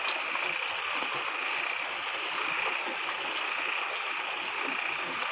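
Steady forest ambience: an even hiss with a constant high-pitched buzz running through it, and a few faint clicks.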